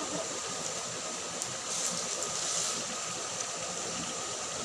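Steady rushing of water flowing along a small ditch, with a brief brighter hiss about two seconds in.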